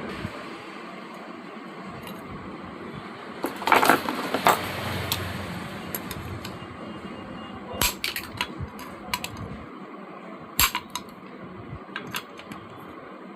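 Small metal fan parts and tools clinking and clattering in irregular clicks and knocks, loudest in a burst about four seconds in, over a steady hiss.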